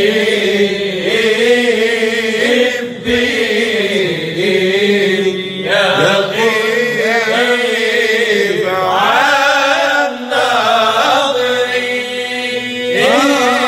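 A male Sufi vocal group chanting a muwashshah in the Moroccan sama' style. The group holds a steady note while a lead voice slides and wavers above it.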